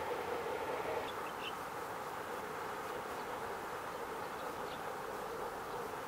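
Steady outdoor background hum and hiss, with a few faint, short high chirps about a second in and again near the end.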